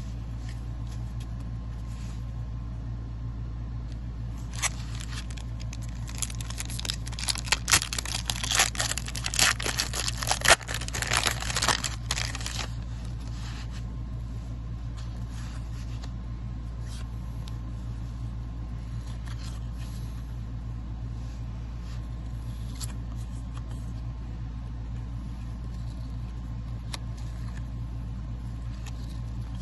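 Foil wrapper of a 1991-92 Upper Deck basketball card pack being torn open and crinkled: several seconds of loud crackling and tearing starting about four seconds in, then a few light clicks as the cards are handled. A steady low hum runs underneath.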